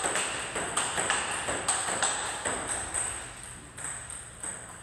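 Table tennis rally: a celluloid-type plastic ball clicking off rubber paddles and bouncing on the table, a sharp tick about every half second. The ticks grow fainter and sparser after about three seconds.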